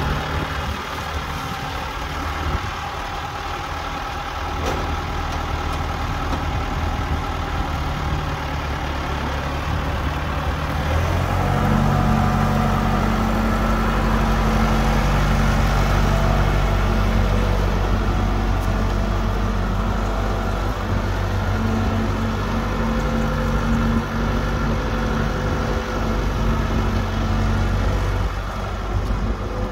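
1972 International 574 tractor engine running as the loader tractor drives across concrete. About eleven seconds in, the engine speeds up, gets louder and holds at the higher speed.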